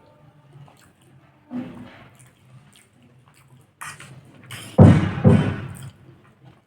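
Close-miked eating: wet mouth sounds and soft clicks, with two loud ones close together about five seconds in.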